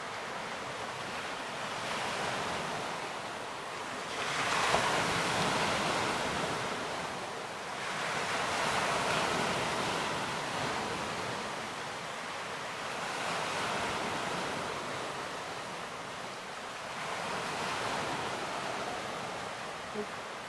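Lake waves breaking on the shore, a steady wash that surges and falls back every four to five seconds.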